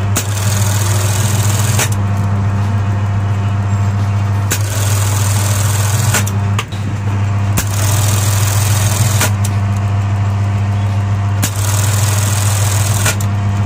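Juki industrial button-sewing machine attaching buttons to a shirt: its motor hums steadily while it runs four stitching cycles of about a second and a half each, every cycle starting and stopping with a sharp clack.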